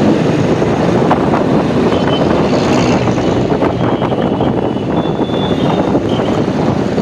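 A TVS motorcycle riding along: its engine running steadily under heavy, fluctuating wind noise on a helmet-mounted phone microphone.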